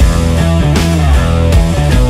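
Loud rock outro music.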